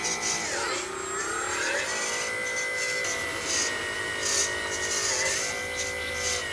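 Homemade RC truck's small motor and gear drive whining steadily; the pitch sags about half a second in and climbs back by two seconds, then dips briefly again near five seconds as the speed changes.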